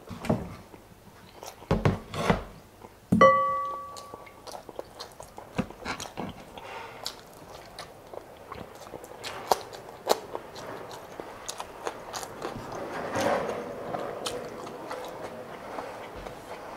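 Close-up eating sounds: chewing with many small clicks of utensils on a plate. About two seconds in come two low thumps, and about a second later a sharp clink that rings briefly.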